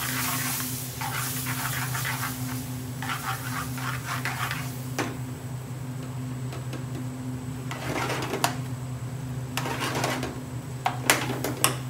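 Metal spoon stirring and scraping a thick tomato-and-onion masala in a metal frying pan, the sauce cooking over a gas flame. The stirring comes in spells, and several sharp clinks of the spoon against the pan fall mostly in the second half, over a steady low hum.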